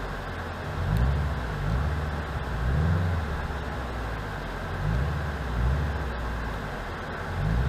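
The 2.0-litre flat-four engine of a Toyota 86-family coupe, heard from inside the cabin, pulling the car along at low speed. Its pitch rises and falls about five times as the throttle is applied and eased, over steady road noise.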